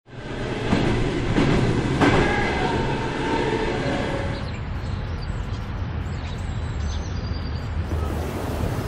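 Passing passenger train: a rumble of wheels on rails with some squealing tones in the first half. It then settles into a steadier low rumble as the higher sound falls away.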